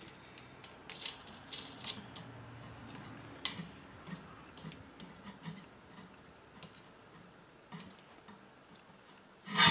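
Scattered light clicks and ticks of small metal hardware being handled as a washer is fitted onto the bolt of a camera mount clamp.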